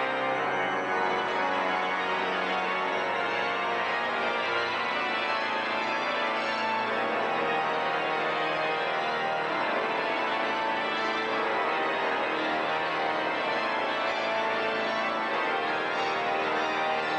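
Slow organ music with long held chords.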